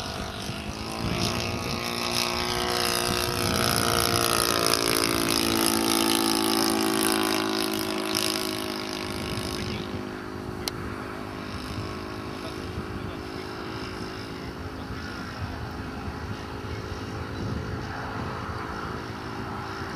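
Petrol-converted model aircraft engine running in flight. It grows louder and drops in pitch as the plane passes close, then runs fainter and steadier for the second half, with a single click about halfway through.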